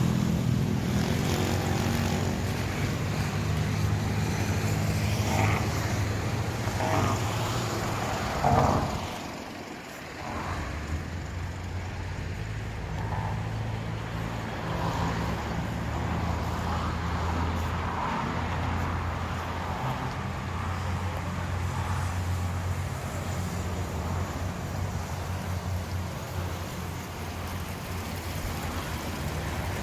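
A car being driven, with a steady low engine and road hum; the hum drops away briefly about a third of the way in, then carries on.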